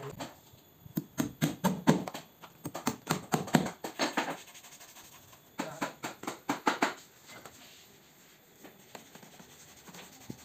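Runs of quick, sharp clicks and knocks from work on a wooden sofa frame, several a second: one run from about one to four seconds in, and a shorter one around six to seven seconds in.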